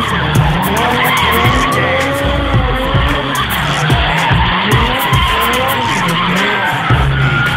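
An open-wheel car doing donuts on tarmac: its tyres squeal continuously as they spin, and the engine revs rise and fall over and over as the car turns.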